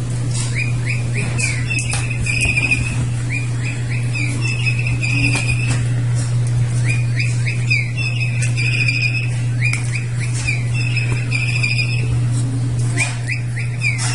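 Bird toy sounding a recorded bird call: a run of quick chirps that leads into a steadier high warble, repeated about every three seconds, over a steady low hum.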